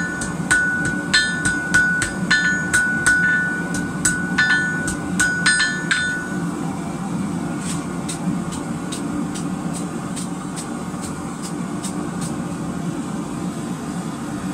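Hammer blows on hot rebar on a steel anvil, about three a second, each ringing clearly, while two rebar pieces are forge-welded together. The hammering stops about six seconds in, leaving the steady rush of the propane gas forge.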